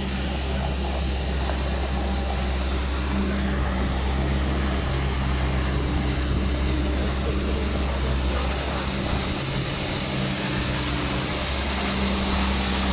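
Steady outdoor background noise: a deep rumble under a hiss, with faint low hums that come and go.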